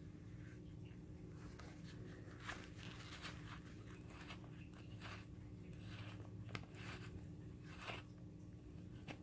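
Leather-gloved hands handling a ribbed metal gas-mask filter canister: soft intermittent rubbing and scraping, with a few small sharp clicks, over a faint steady hum.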